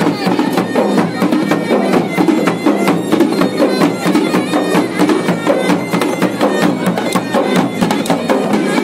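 Live Garhwali band music: dhol and damau drums beating a fast, dense dance rhythm under the steady, reedy drone and melody of a masakbeen (Garhwali bagpipe).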